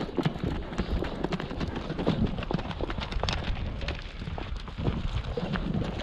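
Hoofbeats of a ridden mule and a horse moving fast over dry, dusty ground: a quick, uneven run of thuds.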